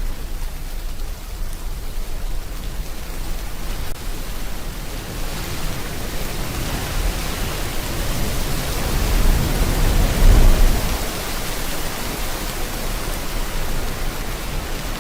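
Steady rain hiss mixed with ocean waves; the sound builds from about five seconds in to a loud wave swelling and breaking around ten seconds in, then settles back to an even wash.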